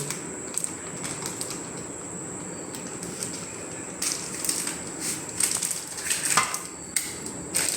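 Scattered light clicks and taps of things being handled, thicker in the second half, over a steady high-pitched whine.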